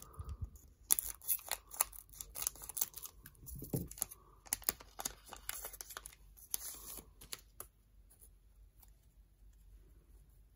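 Foil Yu-Gi-Oh booster pack wrapper being cut with scissors and pulled open, crinkling and tearing in a quick, irregular run of crackles. Near the end this gives way to faint ticks of the cards being handled.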